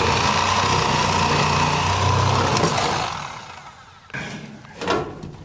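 Milwaukee Sawzall reciprocating saw cutting into a glued plastic pipe elbow, running steadily for about three seconds and then winding down.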